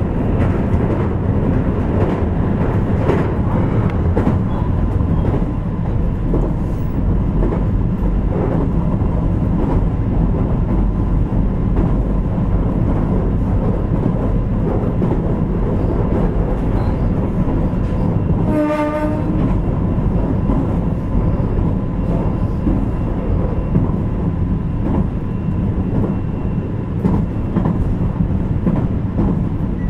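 JR Kyushu 817-series electric train (KuMoHa 817-1009) running at a steady speed, with a steady loud rumble and occasional rail-joint clicks. About two-thirds of the way through, a horn gives one short blast.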